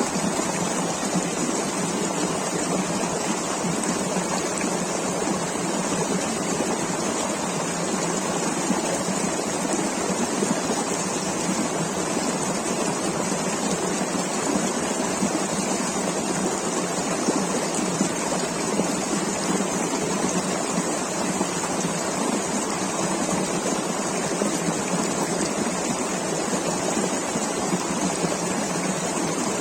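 River water running over rocks, a steady rushing with no pauses or changes.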